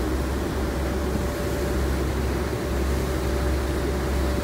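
Pilot boat's engines running steadily under way as a low, continuous drone, with water rushing past the hull.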